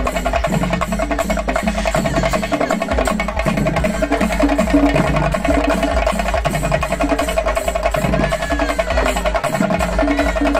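A procession drum troupe playing large barrel drums: fast, continuous sharp strokes over deep, rhythmic bass beats, with a steady ring that carries throughout.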